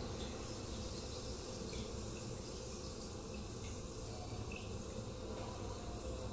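Faint steady background hiss with no distinct events.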